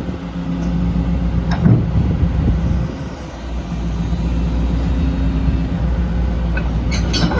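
Diesel engine of a Hyundai HX130 LCR excavator running steadily, with a single clunk about a second and a half in and a short dip in level around three seconds.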